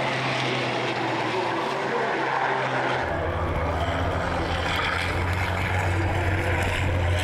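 Racing trucks' turbodiesel engines running at speed, a steady drone; about three seconds in it turns deeper and heavier as several trucks are heard together.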